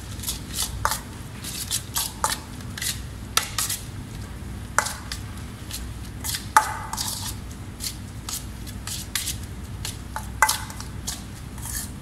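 A utensil clinking and tapping against a mixing bowl as shredded cabbage is stirred together with mayonnaise for coleslaw: irregular clicks, some with a short ring.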